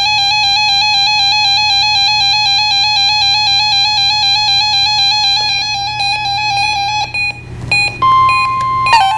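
Electronic alert tone of an Emergency Alert System weekly test, warbling rapidly between two close pitches. About seven seconds in it breaks up briefly. A steady, slightly higher tone then sounds, and near the end the warble returns alongside it.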